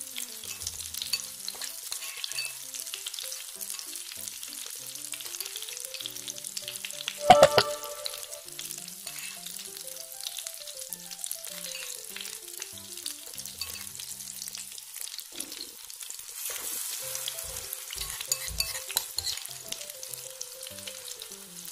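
Battered tempeh slices frying in oil in a non-stick pan, with a steady crackling sizzle. About seven seconds in there is one loud ringing clink. The sizzle grows louder about sixteen seconds in.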